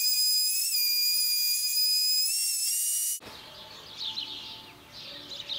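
Handheld electric router running, a loud, steady high-pitched whine that rises slightly in pitch and then cuts off abruptly about three seconds in, while it routes a shallow groove in a melamine-covered particleboard top.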